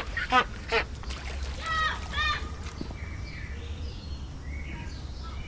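Zoo ambience: a few brief high-pitched voices from passers-by in the first half, then faint short chirps, over a steady low rumble.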